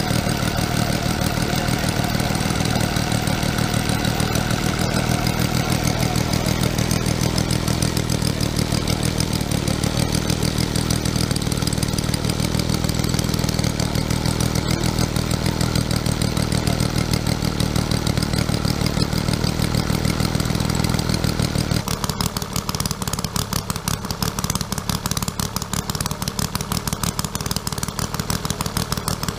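Homemade 60 cc three-cylinder model engine, built after a large ship's diesel, running steadily at a fast even beat. About two-thirds of the way through the sound changes abruptly: the deep rumble drops away and a thinner, rapid clatter remains.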